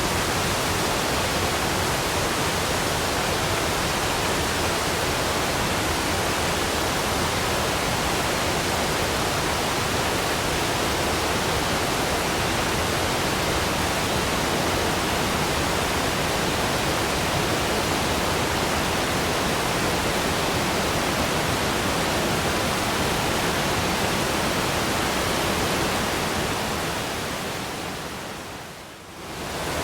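Waterfall: a steady rush of falling water. Near the end it fades down for a moment and then comes straight back in.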